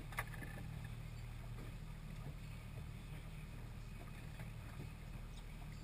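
Boat's engine running steadily, a low even drone, with one brief sharp click about a quarter of a second in.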